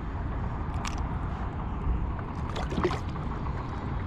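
Steady low rumble of wind and water around a kayak, with a few light clicks and knocks of gear being handled on board, about a second in and again near the end.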